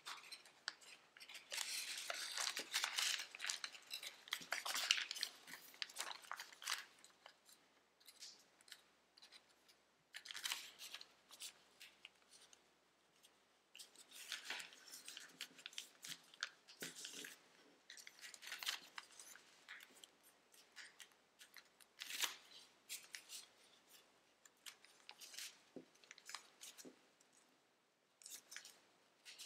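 Origami paper rustling and crinkling in irregular bursts as it is folded and creased by hand, busiest in the first few seconds.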